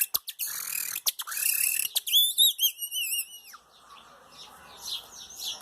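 Bird-call imitation made by drawing air past a small plastic strip held against the upper lip, mimicking a hawk: a few harsh, high screeching calls, then a wavering high warble about two seconds in.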